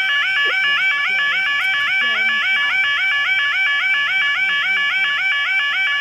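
Level crossing audible warning alarm sounding: an electronic yelp that repeats a fast rising warble about five times a second at a steady loudness, warning that the crossing is closing for a train.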